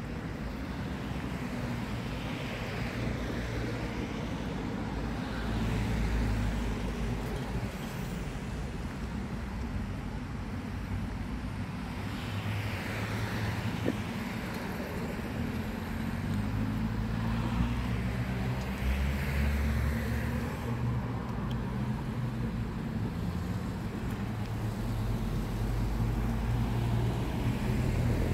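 City street traffic: cars passing on both sides, their tyre and engine noise swelling and fading every few seconds over a steady low rumble.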